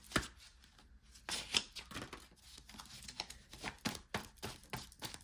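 Deck of tarot cards shuffled by hand, cards slapping and clicking against each other in an irregular run of soft taps. After a single click at the start, there is a pause of about a second, and then the taps come several a second.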